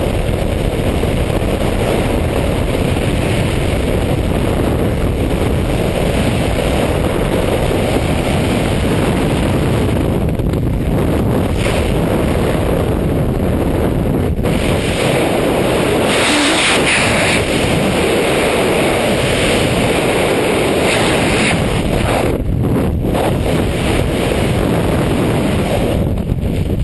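Loud, steady wind rush buffeting a helmet-mounted camera's microphone in skydiving freefall.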